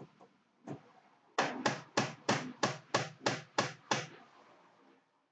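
A run of about ten sharp, evenly spaced hammer taps, roughly three a second, after a single tap about a second before them.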